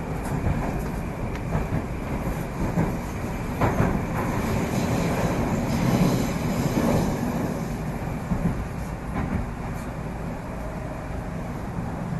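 Moscow Metro 81-765 'Moskva' train running at speed through a tunnel, heard from inside the car: a steady rumble of wheels on rail with occasional clicks over rail joints, swelling louder around the middle.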